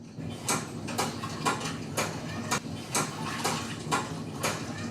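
Cartoon footstep sound effect: evenly paced steps, about two a second.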